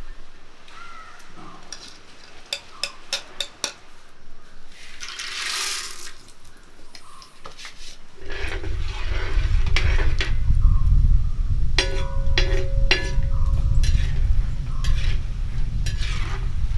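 Kitchen utensils clinking and scraping against metal vessels while ingredients are handled and mixed, with a short hiss about five seconds in. From about eight seconds in, a loud, steady low rumble sets in under further clinks.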